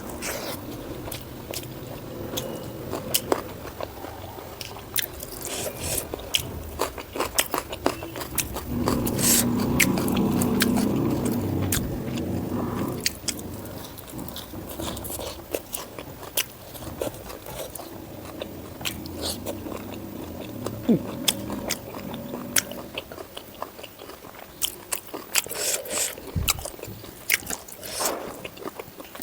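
Close-miked chewing and wet mouth clicks and smacks as a person eats pork fat with white rice. The chewing grows denser and louder for a few seconds near the middle.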